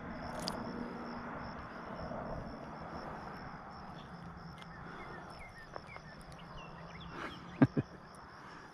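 Crickets chirping steadily in the background at dusk, a fast pulsing high-pitched trill. Near the end, two sharp clicks come a moment apart.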